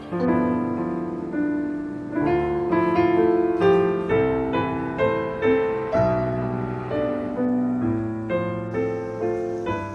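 Gentle piano music: slow single notes and chords, each struck and left to ring and fade.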